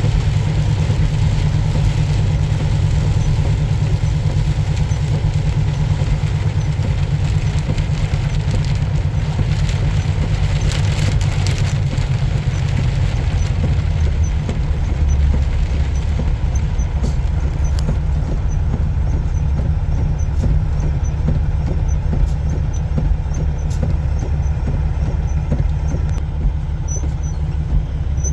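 A truck's engine running steadily with road noise while driving: a constant low drone under a steady hiss.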